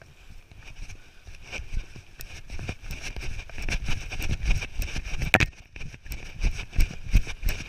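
Knocking, rubbing and wind noise on a handheld action camera's microphone as it is moved about, with low thumps that come about two or three times a second toward the end like running steps.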